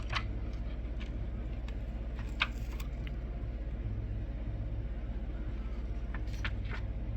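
Steady low electrical hum, with a few faint clicks and soft handling noises as a shirt is laid out on a heat press; one sharper click comes a little before the middle.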